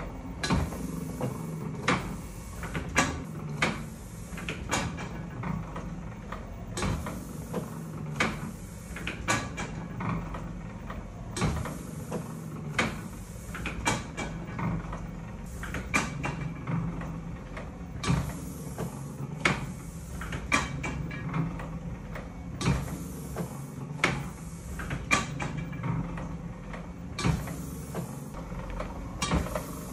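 Chandler & Price-style platen letterpress running under its electric motor: a steady low hum with a sharp clack about once a second or so as the press cycles and the platen closes, and short bursts of hiss between.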